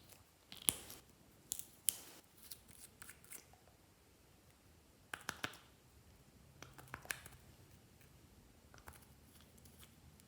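Scissors snipping: a series of sharp cuts in small clusters, spread unevenly over several seconds.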